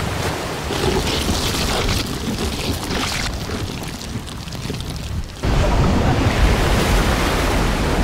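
Film sound effects of heavy seawater crashing and churning as a giant sea monster breaks the surface, with a sudden louder, deep rumble about five and a half seconds in.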